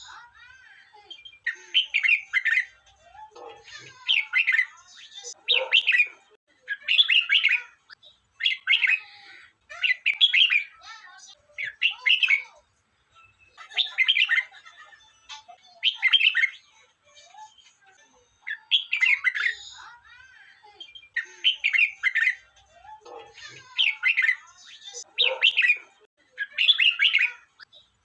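Red-whiskered bulbul singing short, repeated song phrases, one every second or two.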